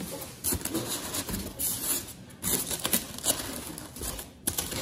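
Cardboard gift box being opened by hand: a foam packing insert is handled and the cardboard flaps are folded back, giving irregular rustles, scrapes and taps.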